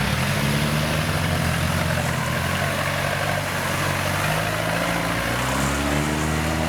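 Farm machine's engine running steadily in a rice field, with a deep, even hum. The engine speed climbs about five seconds in.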